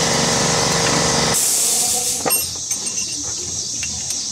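An air compressor's motor running steadily shuts off about a second and a half in, with a short hiss of air released as it stops. Light metallic clinks of hand tools follow.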